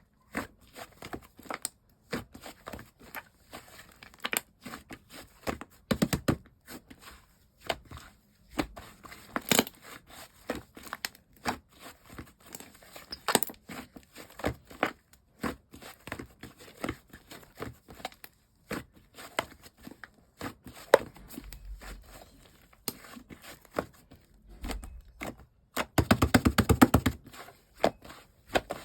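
Clay slime being squeezed, stretched and pressed by hand, giving irregular clicks and small pops, with a quick run of rapid pops near the end.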